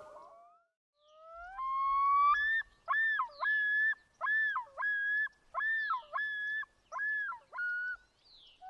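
Common loon (great northern diver) yodelling: a rising opening note jumps to a higher pitch, then runs into a string of repeated up-and-down two-note phrases that ends in a short lower note. The yodel is the male's territorial call.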